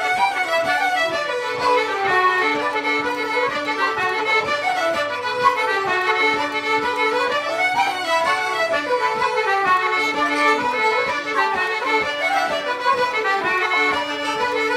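Irish traditional session music: a lively dance tune played at a quick pace, with fast runs of notes over a recurring held lower note.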